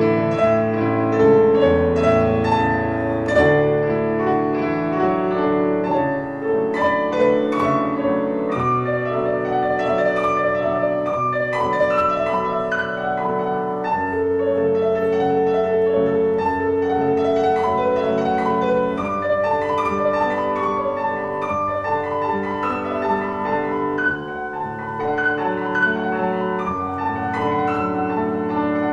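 Piano music playing continuously: a flowing piece of many overlapping, sustained notes.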